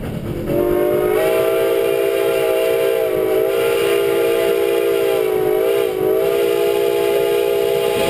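Steam chime whistle of White Pass & Yukon Route steam locomotive No. 73: one long blast of several notes sounded together. It steps up slightly in pitch about a second in and wavers briefly near six seconds.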